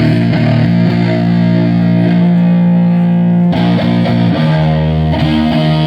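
Distorted electric guitar through an amplifier, letting long chords ring out, with a few chord changes in the second half.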